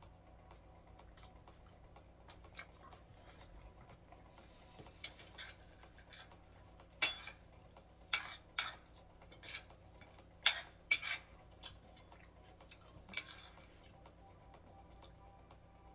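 Metal spoon and fork clinking and scraping against a dish while eating: scattered sharp clinks, most and loudest from about halfway through, with a brief scrape about four seconds in.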